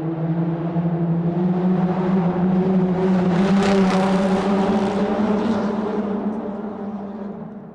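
Car driving through a tunnel: a steady engine hum, its pitch rising slightly early on, under tyre and road noise that swells to its loudest about four seconds in, then fades out near the end.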